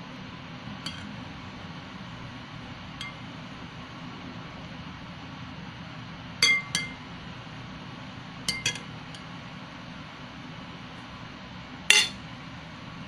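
Metal spoon clinking against a ceramic soup bowl: about seven short ringing clinks, some in quick pairs, the loudest near the end, over a steady low hum.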